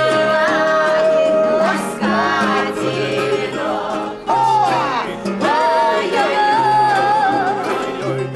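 Song with a singing voice holding long notes that bend and slide, over a plucked string accompaniment and a steady bass line.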